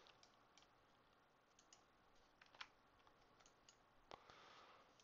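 Near silence with scattered faint clicks of a computer mouse and keyboard, about a second apart.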